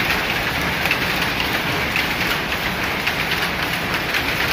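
Power loom weaving cloth, running with a steady, dense mechanical clatter of rapid rattling and clicking.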